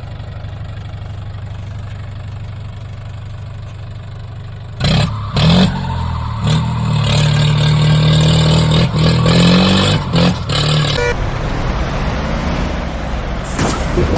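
Tractor engine running with a steady low hum, then revving louder about five seconds in, its pitch rising and falling for several seconds. A short hiss comes near the end.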